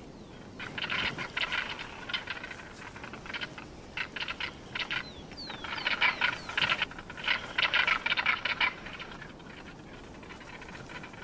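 Crested caracaras calling in bursts of quick, rattling notes, with a few short falling notes in the middle, before the calls die away near the end.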